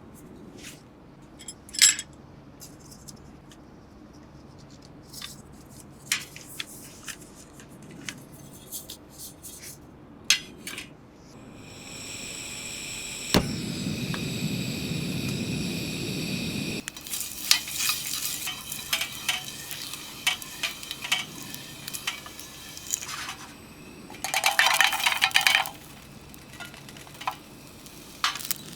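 Camp cooking: utensils clinking and scraping against metal pots and pans, with a steady hiss lasting a few seconds midway and a quick run of clinks near the end.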